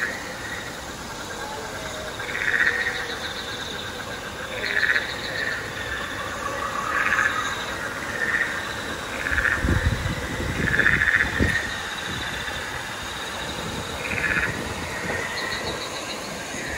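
Frogs calling: short pulsed calls repeated every second or two, with a few low bumps near the middle.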